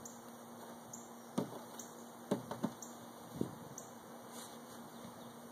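Honey bees buzzing in a low, steady hum, with a few short, sharp louder sounds in the first half.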